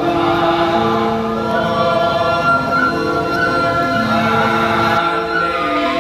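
Music with voices singing long, held notes in a choir-like texture, moving from note to note in steps.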